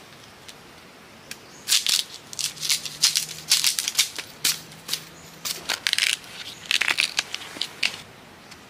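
A knife cutting into and peeling the husk off fresh bamboo shoots: a run of crisp slicing and tearing strokes that runs from about two seconds in to near the end.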